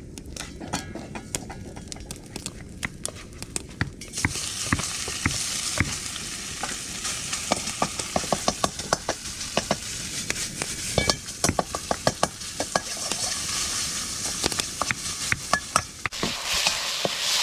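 Food stir-frying in a wok over a hot fire: repeated clanks of the metal spatula or ladle against the wok over a sizzle that gets clearly louder about four seconds in.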